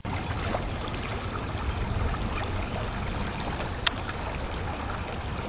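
Steady rushing noise of wind buffeting the microphone over a flowing creek, with one sharp click about four seconds in.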